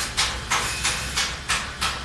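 Quick rough scraping strokes, about three a second, each starting sharply and fading fast, over a steady low hum.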